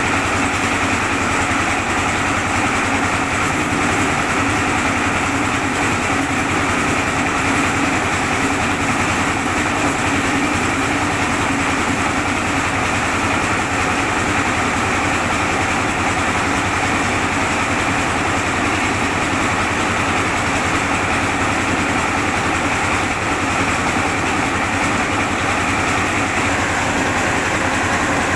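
Vehicle-mounted rice mill running steadily, its engine and milling machinery making a continuous, even whirring drone as paddy is fed in and milled.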